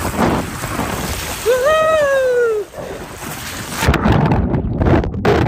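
Wind rushing on the microphone over water and waves. About a second and a half in, one drawn-out voice call rises and then falls in pitch for about a second. Around four seconds in, the background noise changes abruptly.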